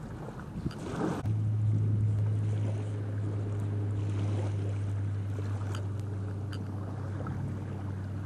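A small motor running steadily with an even low hum, coming in about a second in, with a few faint ticks over it. Before that there is a brief stretch of wind and handling noise.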